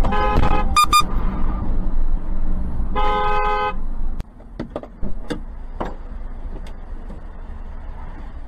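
Car horn honking in traffic: a half-second blast, two quick toots about a second in, then another blast about three seconds in, over the steady low rumble of a moving car. A few sharp clicks follow, and a loud thump comes at the very end.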